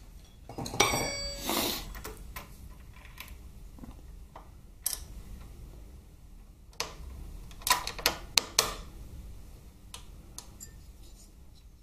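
Metal parts clinking as the head steady bracket and its rod-end link are fitted by hand on a Harley-Davidson Twin Cam engine. There is one ringing clink about a second in, then a scatter of short, sharp clicks in the middle.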